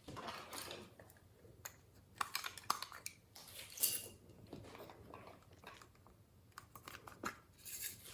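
Glossy slime being squished and kneaded by hand: irregular wet, sticky clicks and crackling pops.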